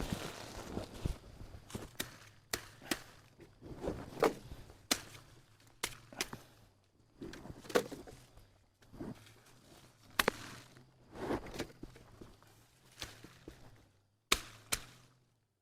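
A string of irregular sharp knocks and short rustles, roughly one or two a second, with a brief pause near the end.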